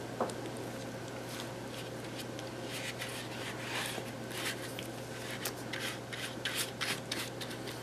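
Paintbrush stroking and dabbing decoupage medium over a hollow paper mache coconut: soft, repeated brushing rubs, over a steady low hum.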